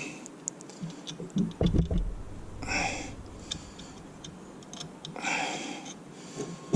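Small clicks and knocks of tools and metal brake caliper parts being handled while refitting rear brake pads, with a dull thump about a second and a half in and two brief scraping sounds around three and five seconds.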